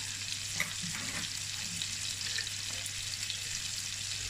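Beef burger patties frying in oil in a nonstick pan: a steady sizzle, with a low steady hum underneath.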